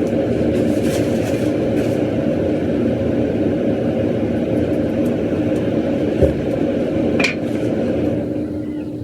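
A steady motor hum with a low rumble, easing off near the end, with a short thump and a sharp click partway through.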